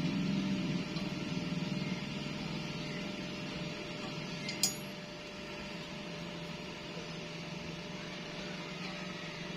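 A steady low hum with a single sharp metallic clink, ringing briefly, about halfway through.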